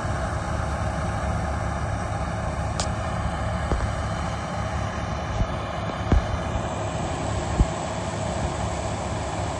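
New Holland TX66 combine harvester running as it threshes wheat: a steady drone of engine and threshing machinery. A few brief low thumps break in about four, six and seven and a half seconds in.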